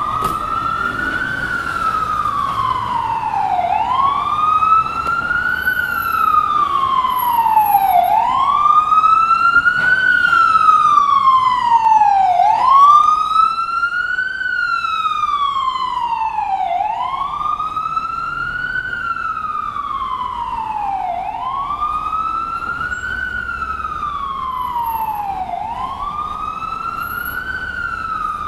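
Ambulance siren sounding a slow wail: each cycle rises quickly in pitch over about a second and a half, then falls more slowly, repeating about every four and a half seconds. It grows louder toward the middle and then eases back a little.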